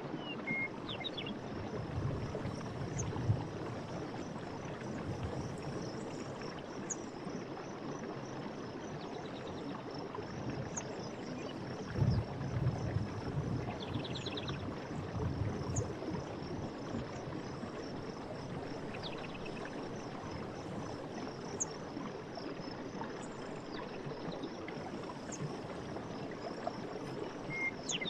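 Night forest ambience: water running steadily with low gurgles that swell about two seconds in and again around twelve seconds, under a constant high trilling of crickets. A few short pulsed calls, like frog calls, break through now and then.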